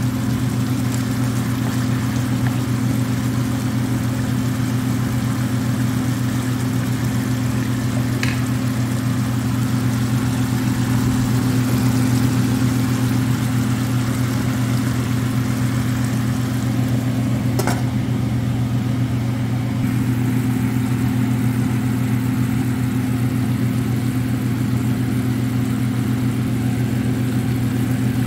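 A steady low mechanical hum over chicken livers simmering in adobo sauce in a stainless steel frying pan, with two brief clicks, one about eight seconds in and one near eighteen seconds.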